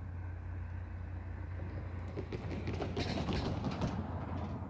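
Low steady drone of a distant diesel locomotive as it approaches down the track, with a stretch of clicking and rattling from about two seconds in until near the end.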